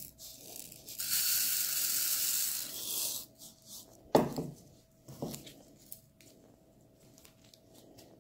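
Small clear acrylic gems poured from a plastic bowl onto the board, a hiss of tiny pieces for about two seconds, followed by two short knocks.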